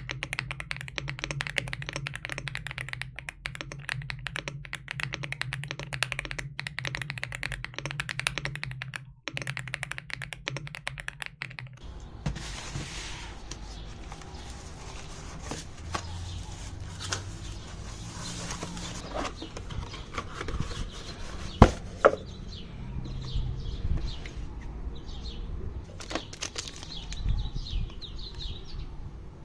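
Fast typing on an AULA F75 MAX mechanical keyboard with pre-lubed switches: a dense run of keystroke clacks over a low steady hum, stopping abruptly about twelve seconds in. After that come the sparse handling sounds of unboxing, with scattered taps, knocks and rustling of the packaging, and two sharp knocks a little past twenty seconds.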